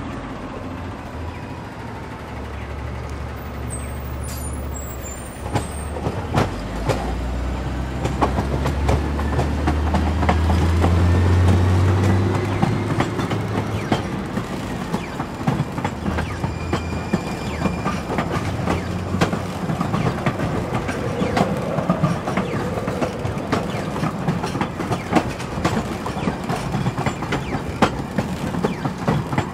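San Diego Trolley light rail train passing close by: a low motor hum swells over the first dozen seconds, then the wheels give a dense run of clicks and knocks over the rail joints and switches.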